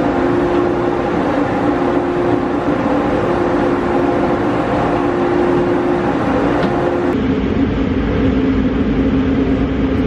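Grain-drying machinery running with a steady, loud drone and a held hum. The hum drops to a lower, different tone about seven seconds in.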